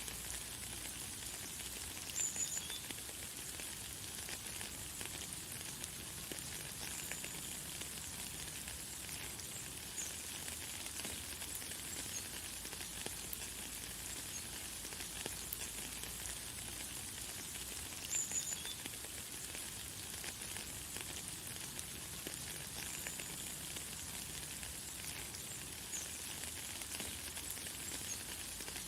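Light, fine rain falling with a steady high hiss. A bird chirps briefly about two seconds in and again about two-thirds of the way through.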